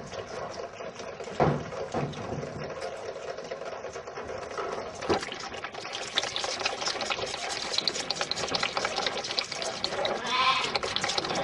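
Young livestock in a pen, with a single bleating call near the end over a steady background of noise and a few knocks.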